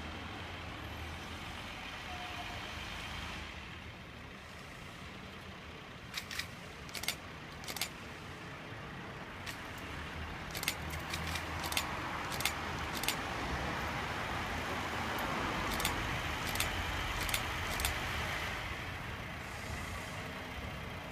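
Diesel rail vehicle running during yard shunting: a steady low engine drone, with a run of sharp clicks through the middle and a swelling rumble in the second half as it moves.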